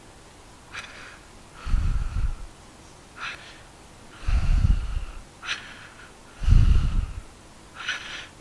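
A man breathing out heavily through his nose into a close microphone, a low puff about every two seconds, with short scratches of a marker writing on a board between the breaths.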